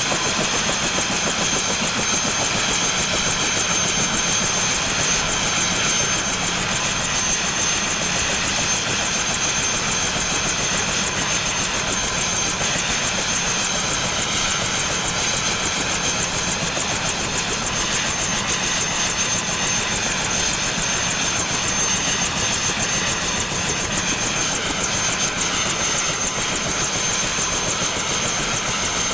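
Bell 212 helicopter's twin turboshaft engines idling, heard from outside the aircraft: a steady high turbine whine over a fast, even rotor beat. The sound holds constant with no spool-down yet.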